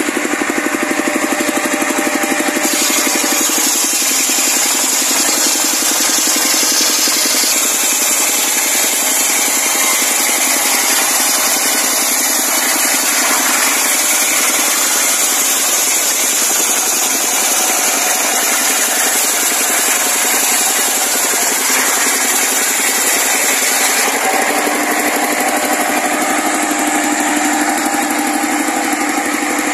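Circular saw ripping a log lengthwise into planks, driven by a horizontal single-cylinder diesel engine running steadily at working speed. The saw's high cutting noise is strongest from about three seconds in until near the end, when it eases off as the cut finishes.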